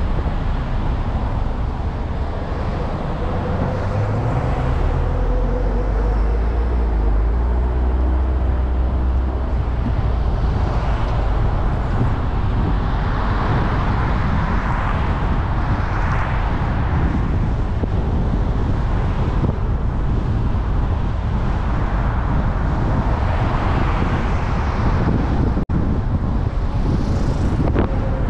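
Road noise of a car driving in city traffic: a steady tyre and engine rumble, swelling now and then as other vehicles pass. The sound drops out for an instant near the end.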